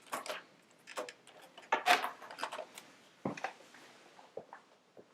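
Scattered light clicks and small knocks of laptop parts being handled, the loudest a sharp clack about two seconds in.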